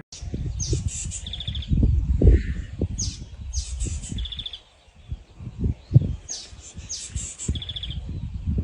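A songbird singing the same short phrase three times, each ending in a fast buzzy trill, over a low uneven rumble with knocks.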